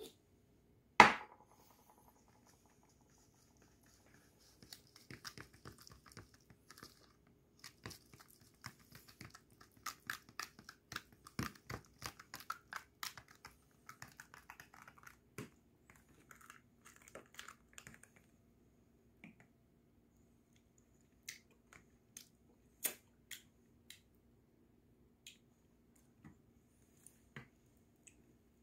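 Kitchen handling sounds while mixing bibim-guksu seasoning: a sharp click about a second in as a seasoning jar's lid is closed, then a long run of small scrapes and taps as a spoon scoops red chili paste from a plastic tub, and a few scattered clicks near the end.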